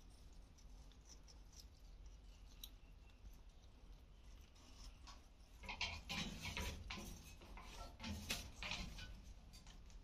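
Alexandrine parrots biting and chewing watermelon chunks in a steel feeding bowl: faint scattered clicks, then a run of louder beak clicks and wet crunches from about six seconds in until about nine seconds.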